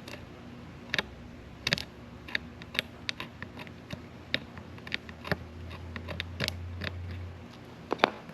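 Irregular small clicks and taps of hand tools working on a fishing rod as the old guide wrapping thread is cut and stripped off. A low steady hum comes in for about two seconds past the middle.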